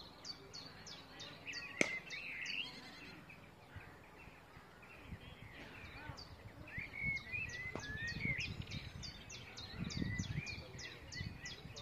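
A bird sings a quick series of short, high, falling chirps, about three a second. It pauses for a few seconds in the middle and then starts again. There is a single sharp crack about two seconds in, and a low rumble through the second half.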